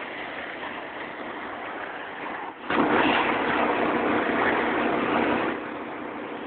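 Pressure washer running steadily, with a louder rushing hiss for about three seconds in the middle.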